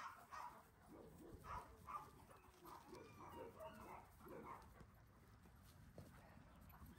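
Faint, scattered short sounds of German shepherds and another dog running and play-fighting on grass.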